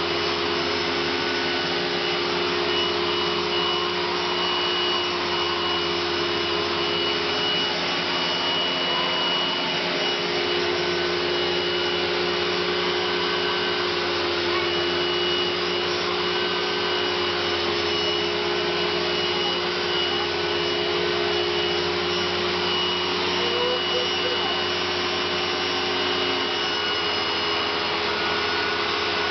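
Philips AquaTrio washing vacuum cleaner running steadily: a wide rush of air and motor noise with a steady hum and a high whine.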